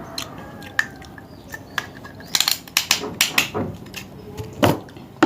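Raw clams being handled and eaten: a run of sharp clicks and clacks of clam shells, thickest in the middle of the stretch.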